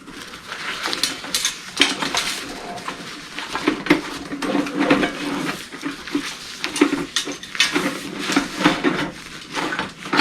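Metal camp-cookware parts of a Kelly Kettle kit clinking and knocking against each other while being packed into their carry bag, with handling and rustling between the knocks.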